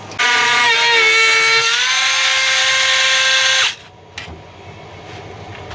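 Cordless Dremel rotary tool with a right-angle attachment and a quick-release abrasive cutting wheel, cutting with a high, steady whine. Its pitch rises slightly about two seconds in, and it stops suddenly after about three and a half seconds.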